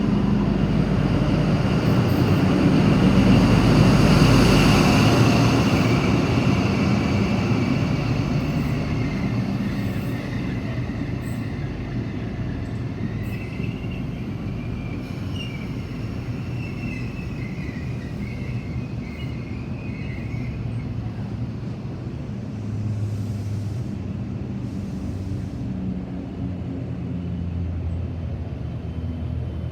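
XPT passenger train passing through a station: the leading diesel power car is loudest in the first few seconds, then the carriages roll by with a steady rumble and a wavering high wheel squeal midway, and the trailing power car's engine comes up again near the end.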